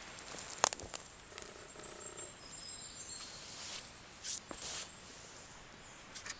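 Footsteps on dry twigs and leaf litter: a sharp twig snap about half a second in, then scattered crunches and rustles, with two louder ones a little past the four-second mark.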